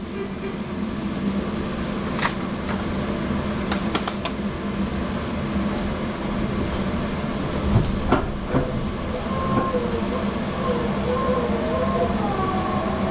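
Inside a Meitetsu 3150 series electric train standing at the platform: a steady hum of on-board equipment with a few sharp clicks. About ten seconds in, the train starts to pull away and a rising whine from the inverter and traction motors begins.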